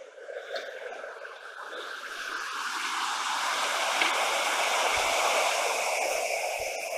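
Mountain river rushing over boulders and small rapids, a steady rush of water that swells to full loudness by about halfway through.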